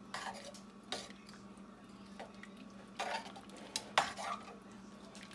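A plastic spoon stirring stew in a stainless steel pot, knocking and scraping against the pot's side a few times, loudest about four seconds in, over a steady low hum.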